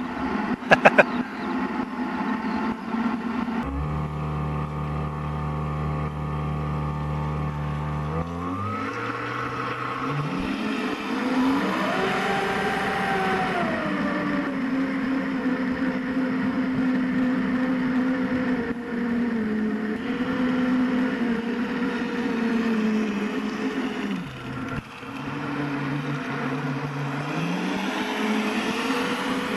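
Electric drive motor of an RC model boat running on a 4S battery, a whine whose pitch climbs about eight seconds in, peaks a few seconds later, and then holds fairly steady with small dips as the throttle changes. A few sharp clicks come at the very start.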